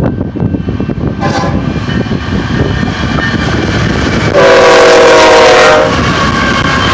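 Air horn of an approaching BNSF ES44DC freight locomotive: a brief toot about a second in, then a long blast of about a second and a half past the middle, the loudest sound. Under it the steady rumble of the oncoming train grows.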